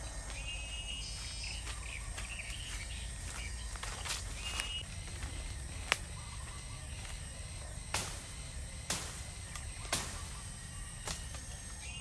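Footsteps through forest undergrowth, with several sharp cracks about six, eight, nine and ten seconds in, over a low steady rumble. Birds chirp briefly now and then.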